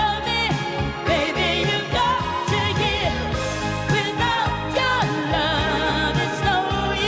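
Female vocalist singing a pop song live into a microphone over band accompaniment, holding notes with vibrato.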